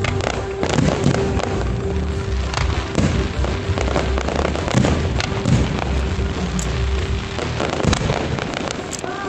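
Aerial fireworks going off in quick, irregular succession: a continuous run of bangs and crackling shell bursts.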